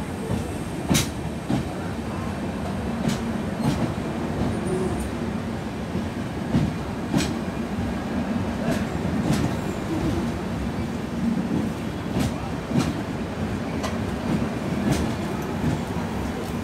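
The passenger coaches of an Indian Railways express train rolling past close by. There is a steady low rumble, with sharp clacks, often in pairs, as the wheels cross rail joints.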